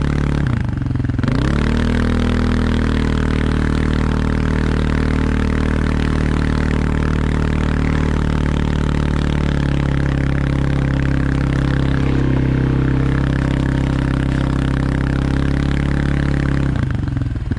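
Dirt bike engine running under load while towing a lawn tractor on a strap. The revs dip and pick back up about a second in, hold steady, and fall back near the end.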